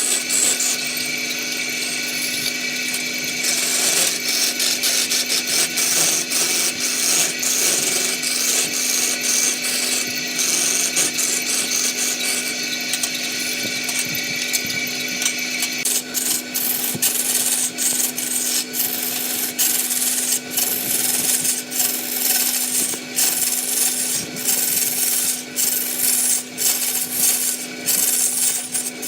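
Wood lathe running with a steady motor hum while a tool scrapes and rasps against the turning wood; about halfway through the high whine stops and the cutting turns into a quick run of short, uneven scraping strokes.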